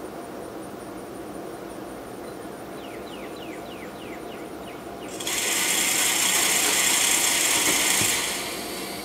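Tripod game feeder's spinner whirring as it throws corn. It starts abruptly about five seconds in and runs for about three seconds. Before it, a bird gives a run of quick falling whistles over a high insect trill.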